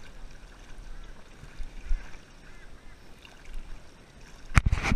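Water sloshing quietly around a person wading through a shallow creek, then about four and a half seconds in a sudden loud burst of splashing as he pushes into the water.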